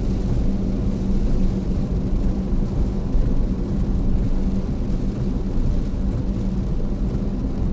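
Steady road noise inside the cabin of a Tesla Model S Plaid at highway speed in heavy rain: tyres hissing on the wet road with rain on the car, under a constant low hum.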